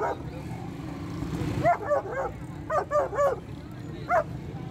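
A dog yipping in short, high-pitched calls: two quick runs of about four, then one more near the end.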